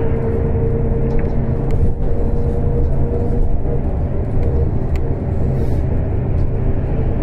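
Trolleybus in motion, heard from inside the cabin: a steady low rumble with a humming whine that fades about four seconds in.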